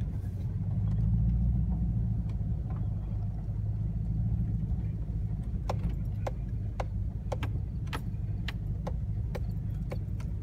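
Pickup truck rumbling along at low speed, heard from inside the cab. From about halfway in, a run of sharp ticks comes roughly twice a second.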